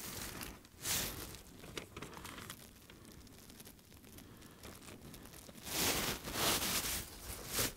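Crinkling and rustling of dry leaves underfoot and of a paper napkin being handled, in a short burst about a second in and a longer, louder stretch near the end.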